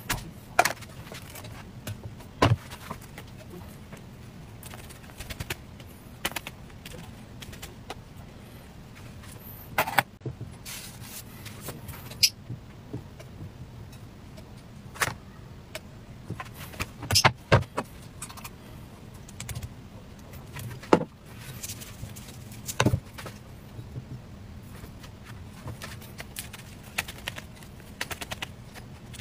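Occasional sharp knocks and clicks from an electric crepe pan being handled and set down on a wooden board, over a steady low hum.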